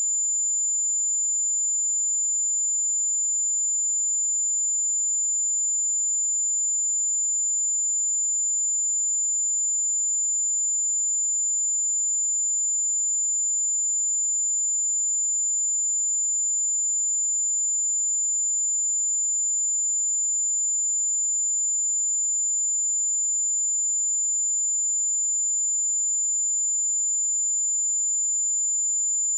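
A steady pure sine-wave test tone at 7091 Hz, a single high-pitched whistle held at an even level.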